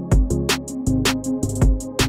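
Background electronic music with a steady drum-machine beat: quick hi-hat ticks over a deep kick drum and bass line.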